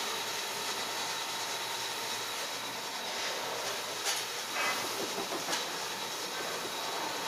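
Steady hiss with a few short plastic clacks around the middle, as a small dog bites and shakes a tube of silicone sealant.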